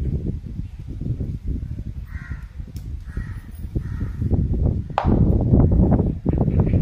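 Crows cawing a few times, short hoarse calls about two, three and four seconds in, over a low rumble on the microphone that grows louder about five seconds in.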